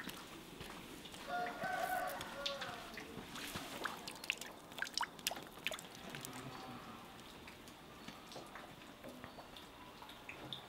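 A rooster crows once, about a second in, over quiet village ambience. A scatter of light clicks and knocks follows over the next few seconds.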